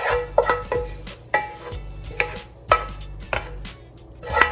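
Wooden spoon scraping and knocking against a skillet as sautéed onion, celery and garlic are scraped out into a slow-cooker crock. About eight irregular knocks, each leaving the metal pan ringing briefly.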